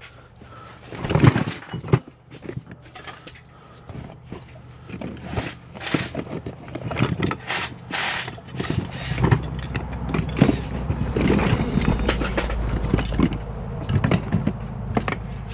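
Hand tools clicking and clanking on metal as bolts are worked loose, with a low steady mechanical hum coming in about nine seconds in.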